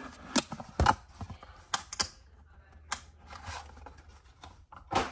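Hard plastic graded-card slabs clacking against each other and against the table as a stack of them is handled and set down: a handful of sharp, irregularly spaced clicks.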